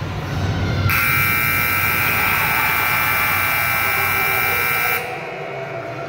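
Basketball scoreboard buzzer sounding one steady, loud buzz for about four seconds, starting and cutting off sharply.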